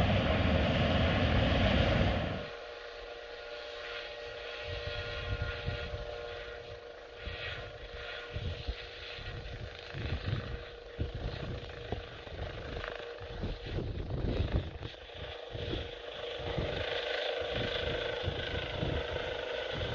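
EC135-type helicopter running on the pad with its rotor turning: a steady turbine whine under rotor noise, with irregular gusts of rotor downwash buffeting the microphone as it lifts off near the end. The sound is loudest for the first two seconds, then drops sharply.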